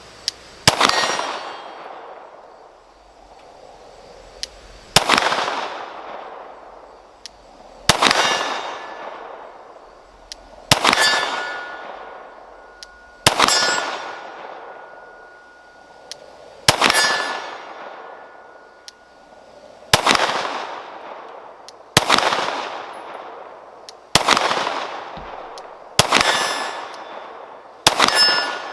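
Glock P80 9mm pistol firing single shots at steel targets about 50 yards off, about eleven shots spaced two to three seconds apart, each dying away slowly. After some shots a steel plate rings with a thin lingering tone, a hit on the steel.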